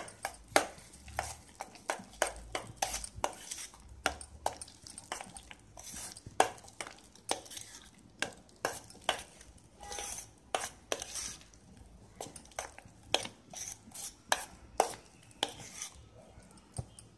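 A steel spoon stirring thick urad dal batter in a stainless steel bowl, clinking and scraping against the bowl in quick irregular clicks, about two or three a second.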